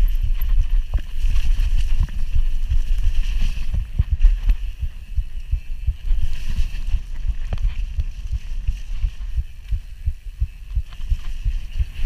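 Bird Aeris One45 mountain bike descending a steep, wet, rough trail at speed: constant wind buffeting on the camera's microphone, with irregular knocks and rattles as the bike hits roots and ruts and tyre hiss on the mud.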